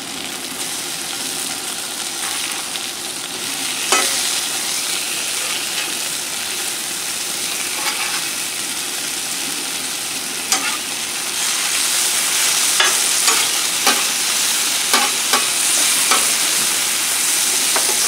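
Chicken breasts sizzling on a Blackstone flat-top griddle while a metal spatula scrapes and taps the steel, flipping the breasts and chopping them into chunks. The sizzle grows louder in the second half, with a quick run of sharp spatula taps near the end.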